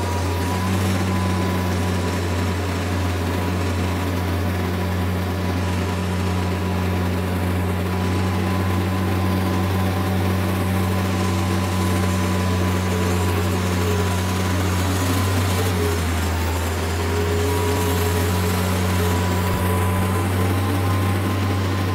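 Kubota M5700 tractor's diesel engine running steadily under load as the tractor drives up a steep driveway, with a slight change in engine pitch about sixteen seconds in. It keeps running without stalling now that the fuel lift pump and fuel filter have been replaced.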